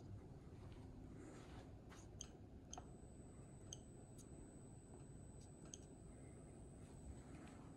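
Faint, scattered clicks from the control panel of an Elinchrom Pro HD flash generator as its buttons are pressed, with a faint steady high whine setting in about three seconds in.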